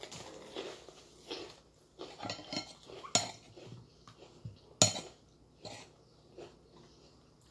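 Spoon and fork clinking and scraping against a plate while eating, with several sharp clinks; the loudest come about three and five seconds in.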